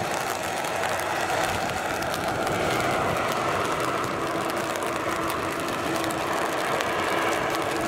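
Beech B200C Super King Air's twin Pratt & Whitney Canada PT6A-42 turboprops running at taxi power: a steady turbine whine over propeller drone as the aircraft rolls past.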